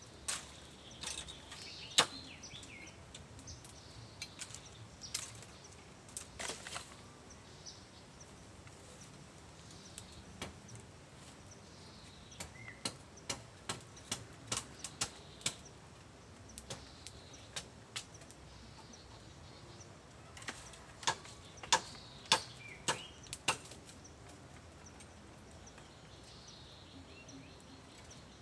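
Irregular sharp clicks and snaps of dry bamboo leaves and twigs crackling, coming in quick clusters about halfway through and again near the end. Faint bird chirps sound in the background.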